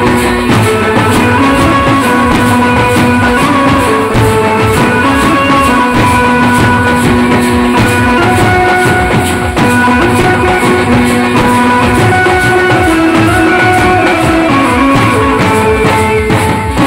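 Tasha party band playing: tasha drums beaten with sticks and large bass drums in a fast, steady rhythm, with a held melody line over the drumming.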